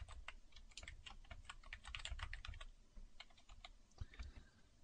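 Faint computer keyboard typing: a quick run of keystrokes that thins out to a few scattered taps in the last couple of seconds.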